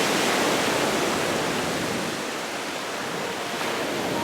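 A steady, even rushing noise like a waterfall, a hiss with no pitch and no rhythm.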